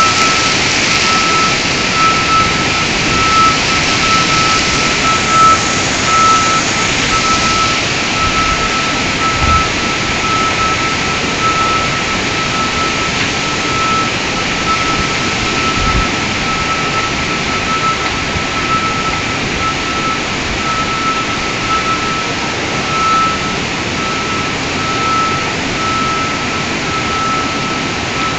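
Steady rushing noise of water flooding a warehouse, with a high electronic alarm tone beeping on a single pitch throughout.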